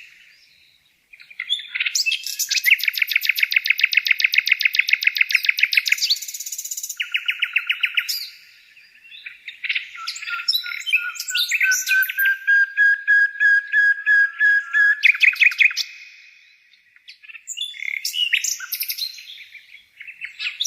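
A songbird singing in long phrases of fast, rapid-fire trills and sharp chirps, with short pauses between phrases.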